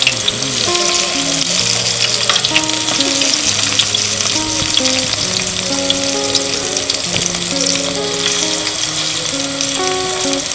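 Food sizzling and crackling as it fries in a pan, with a steady dense crackle throughout. Background music plays a slow melody of held notes over it.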